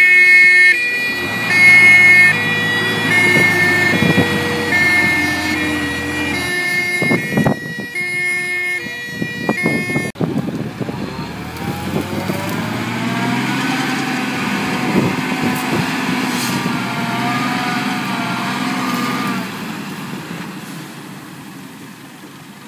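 Fire engine's two-tone siren switching between two high notes about every two-thirds of a second over its running engine, with a few knocks. After a cut about ten seconds in, the truck's engine rises in pitch as it pulls away, then fades near the end.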